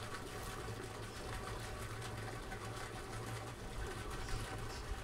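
Steady buzzing of many honeybees from hives just opened after transport, with a steady low hum underneath. The bees are agitated from the journey.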